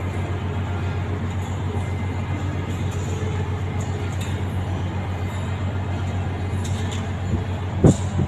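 A steady low engine rumble with a pulsing throb, and a single sharp knock near the end.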